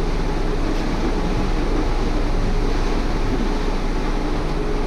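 A sailing catamaran's diesel engine running steadily under way at sea, a constant low drone mixed with the rush of water and wind.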